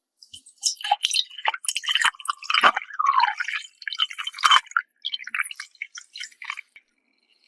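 Close-miked drinking of orange juice: a run of wet sips and swallows with small mouth clicks.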